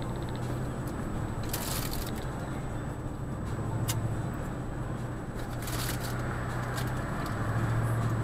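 Steady engine and tyre hum of a car driving at about 30 mph, heard from inside the cabin, with three short noises about two, four and six seconds in.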